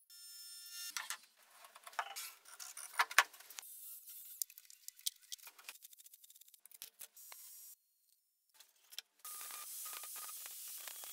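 Workshop handling sounds: a quick run of sharp clicks, taps and knocks of wooden pieces and tools, the loudest about three seconds in. A steady hiss with a faint tone starts about nine seconds in and carries on.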